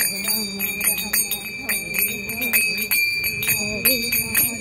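A pair of small hand cymbals (manjira) struck together over and over in a quick, slightly uneven rhythm of about three to four clashes a second, each clash ringing on a bright, high tone. Under them a woman's voice sings a devotional chant.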